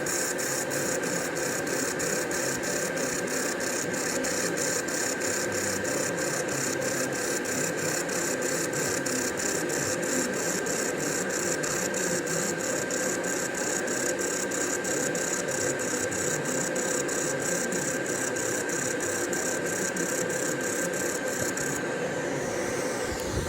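Handheld laser welding machine running while it welds: a steady machine hum with an even high hissing pulse about three times a second, which stops about a second and a half before the end.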